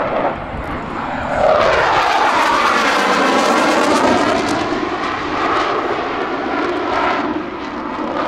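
Jet roar from a U.S. Navy Blue Angels F/A-18 Hornet and its twin F404 turbofan engines during a high-G pass. It swells about a second and a half in, stays loudest for about three seconds with a sweeping, swirling tone, then eases off as the jet climbs away.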